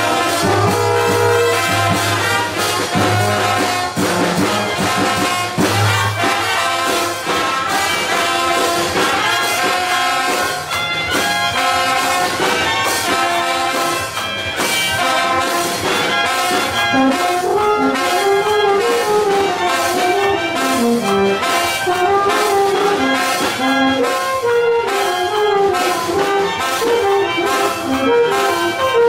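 A Colombian banda pelayera brass band playing: trombones and trumpets carry the melody over an even drum beat. From about halfway through, a lower trombone line moves beneath the tune.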